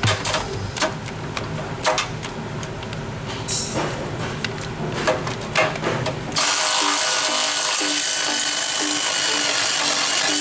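Irregular metallic clicks and knocks as a tool works the loosened grease fitting in a spider lift's track tensioner. About six seconds in, a Milwaukee M12 cordless power tool starts running steadily, spinning the fitting out.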